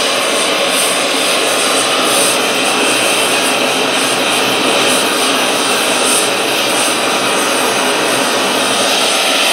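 Homemade gas blowtorch fed with compressed air through a needle valve, burning with a loud, steady rushing hiss of flame and air jet.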